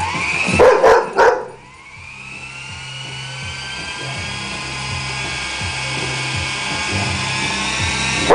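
A dog barks three times in quick succession. Then the small electric motor of a toy remote-controlled helicopter spins up with a rising whine and runs on steadily. Another bark starts right at the end.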